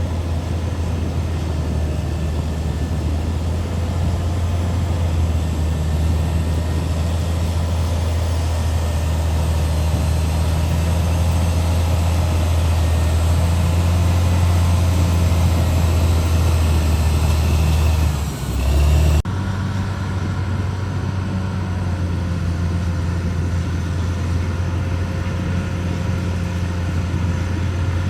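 Heavy diesel engine of a CAT D6R XL bulldozer running steadily at a constant speed, with a deep, even hum. About two-thirds of the way through, the sound briefly wavers and then changes abruptly.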